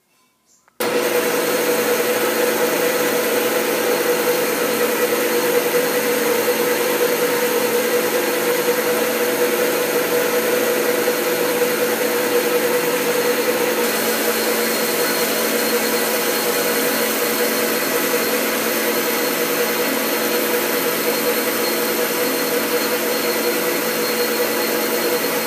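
Metal lathe running steadily while turning a steel shaft between centres with a high-speed-steel finishing tool: a constant mechanical whine and hum from the machine. It starts abruptly about a second in and cuts off abruptly at the end.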